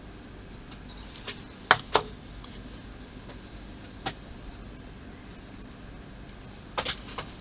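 Small plastic model parts being handled on a workbench: a few sharp clicks and taps, the two loudest close together about two seconds in. A few faint high chirps come in the middle.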